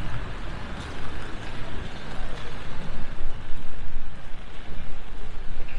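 Busy street in the rain: a steady hiss of rain and wet traffic under a low, uneven rumble of vehicles.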